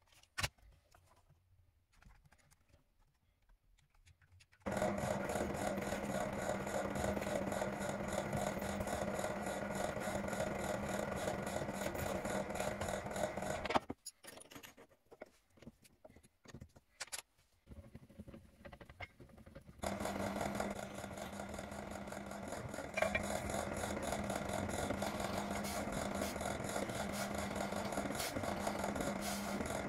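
An electric power tool's motor running steadily in two long stretches, with a pause of a few seconds between them filled by light knocks and handling sounds.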